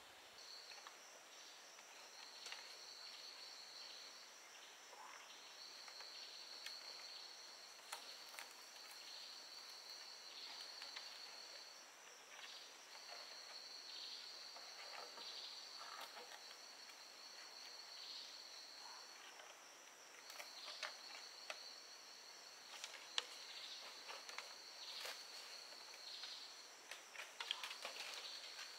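Forest insects making a steady high buzz that stops and starts again several times. Under it are faint scattered clicks and knocks from bamboo poles being handled.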